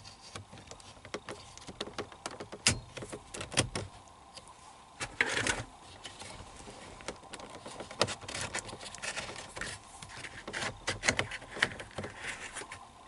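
A knife prying a VW Jetta's hazard light switch out of the plastic dash panel: scattered sharp plastic clicks and scrapes, with a longer scrape about five seconds in and quick clusters of clicks later on.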